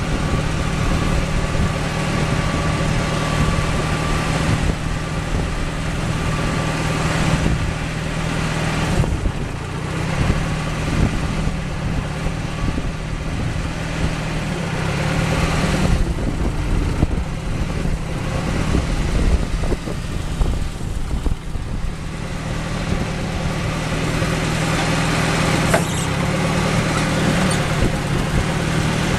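Tractor engine running steadily at idle, a constant low hum.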